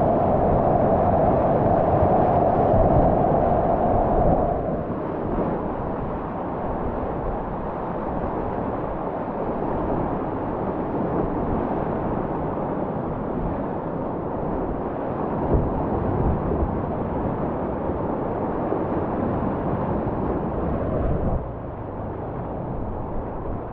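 Whitewater rapids rushing and churning around a kayak close to the microphone. The sound is louder for the first few seconds, eases about four and a half seconds in, and drops a little again near the end.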